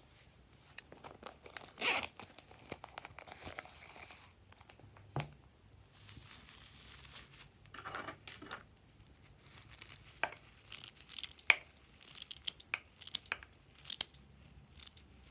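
Red metallic tinsel garland crinkling and rustling as it is handled, then several sharp snips of scissors cutting the tinsel over the slime.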